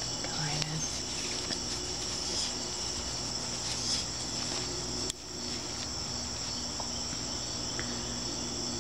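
Steady high-pitched chorus of insects, a continuous shrill drone, over a low steady hum; the sound dips briefly about five seconds in.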